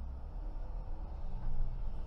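Car engine and road noise heard from inside the moving car: a steady low rumble while driving.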